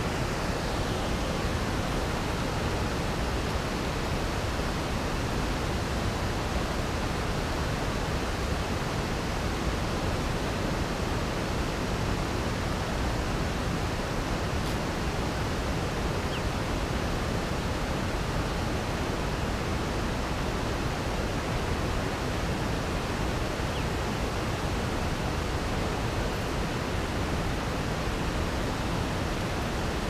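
Steady, even rushing noise that does not change.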